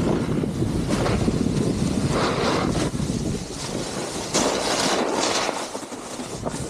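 Wind rushing over and buffeting the microphone, with heavy low rumble and louder hissing swells about two seconds in and again about four and a half seconds in.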